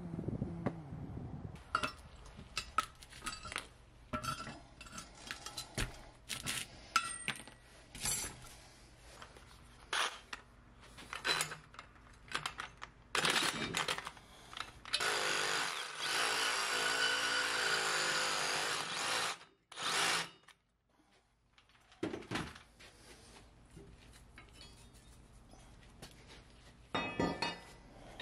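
Ryobi reciprocating saw cutting the cast bronze gates and runner bars off a sand-cast plaque. It runs steadily for about four seconds in the middle, with short bursts and a string of knocks and scrapes before it and a last burst just after.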